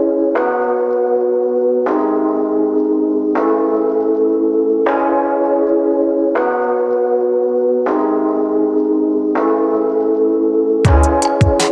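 Instrumental beat in a drumless breakdown: a bell-like chord struck about every second and a half, each strike ringing and fading before the next. Near the end the drums come back in with a kick and hi-hats.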